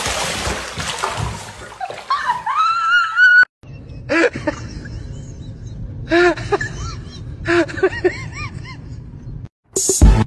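Water splashing in a bathtub as a cat goes into the bath, followed by a long rising cry. After a cut come a few short, rise-and-fall cat meows.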